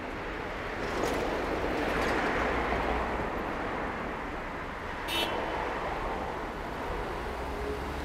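Traffic at a busy city intersection: cars passing through with steady tyre noise and engine hum, swelling for a couple of seconds about a second in. A brief high-pitched squeak cuts through about five seconds in.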